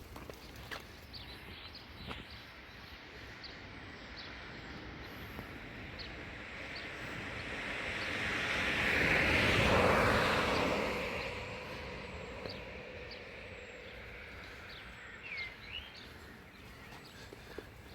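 A vehicle passing by: a rush of noise that swells up to a peak about halfway through and fades away over several seconds. Small birds chirp now and then throughout.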